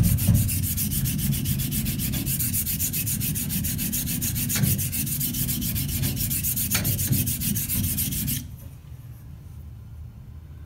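Thiers Issard steel straight razor, wrapped in protective tape, scraped in rapid back-and-forth strokes across a 400-grit Atoma diamond plate. The grinding takes down a high spot on the spine to correct the blade's geometry. The scraping stops abruptly about eight seconds in.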